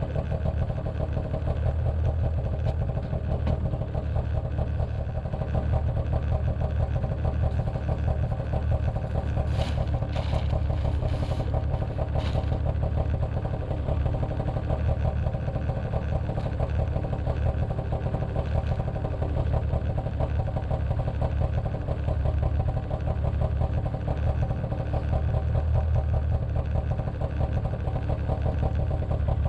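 A vehicle engine idling steadily, with a few short clicks or knocks about ten to twelve seconds in.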